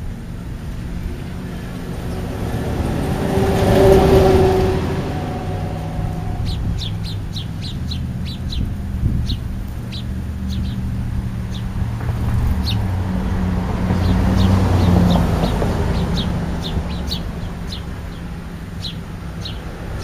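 European starlings giving many short, sharp chirps, starting about six seconds in and repeating irregularly. Under them runs a low steady rumble of passing road traffic that swells twice.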